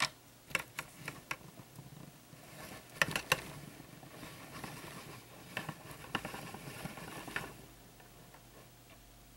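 Light clicks and taps of a smartphone being handled in the hand, coming in irregular groups, with the loudest pair about three seconds in.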